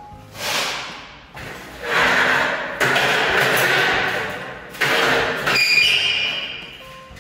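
A wide steel spreading blade scraping wall filler, in long rough strokes over several seconds. Near the end an aluminium stepladder knocks and rings briefly as it is climbed.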